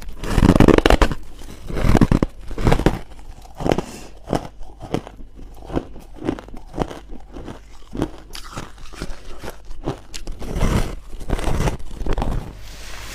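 Close-miked biting and chewing of crunchy, powdery white freezer-frost ice: repeated irregular crunches, loudest in a burst right after the start, again about two seconds in and around eleven seconds.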